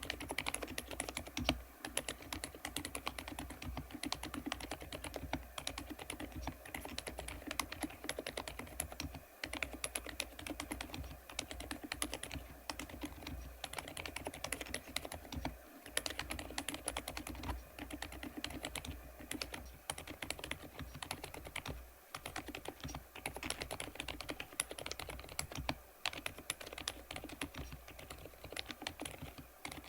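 Thinkway TAUCHE.F 101 full-size mechanical keyboard with Poached Egg silent linear switches being typed on steadily: a continuous run of quiet keystrokes, with a few brief pauses.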